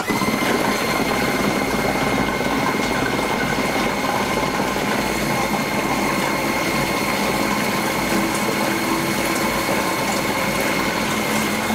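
Braun Multiquick 5 food processor switching on abruptly and running steadily with a high whine. It is blending pumpkin pie filling and sour cream into a smooth cream.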